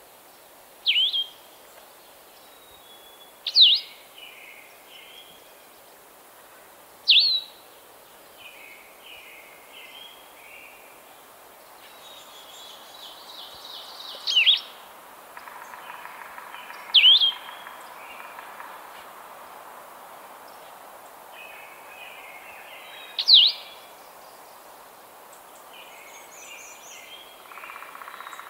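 Blue-headed Vireo singing: about six loud, short whistled phrases separated by pauses of a few seconds, with fainter bird song in the background.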